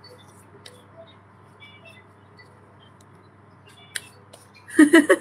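Quiet room tone with a steady low hum and a few faint clicks, then a sharp click about four seconds in; near the end a woman's voice breaks in loudly.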